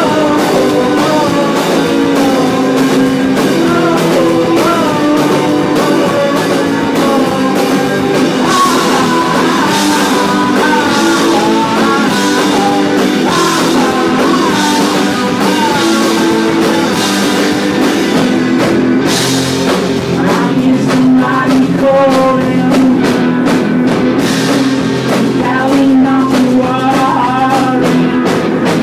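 Garage rock band playing a song live: electric guitars and a drum kit, with a singing voice over them.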